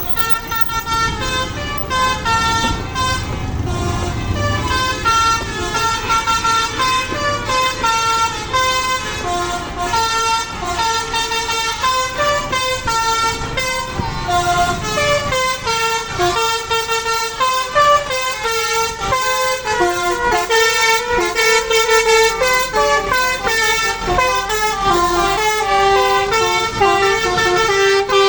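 Tour bus telolet horn: a multi-tone air horn playing a fast melody of changing notes, over the bus engine running for the first few seconds.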